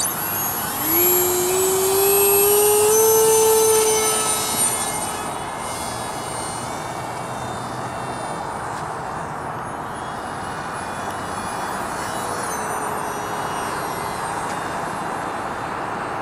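Small electric motor and pusher propeller of a foam RC model plane at full power: a whine rising in pitch over the first few seconds, loudest then, settling to a steadier, fainter whine with a slight drop in pitch about twelve seconds in.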